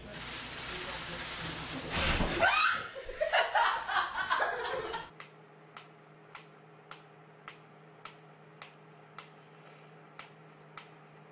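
A person laughs in loud bursts for the first few seconds. About five seconds in, a wooden pyramid metronome starts ticking steadily, a little under two clicks a second.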